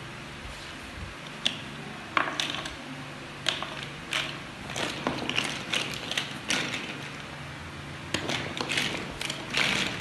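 Large plastic building bricks clattering and clicking, irregular and repeated, as they are sorted through in a toy bin and pressed together.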